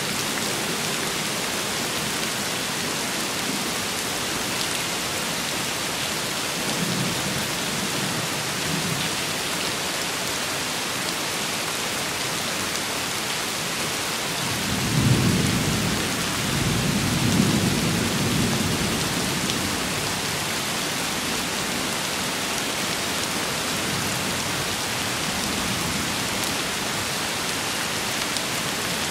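Steady rain falling, a continuous hiss, with a long rumble of thunder about halfway through that swells and fades over several seconds. Fainter rumbles come earlier and near the end.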